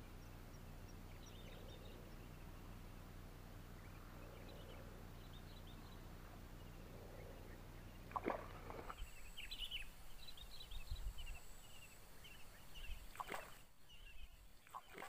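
Faint outdoor ambience: a steady low hum for the first half, then scattered small bird chirps, with two brief knocks, one a little past halfway and one near the end.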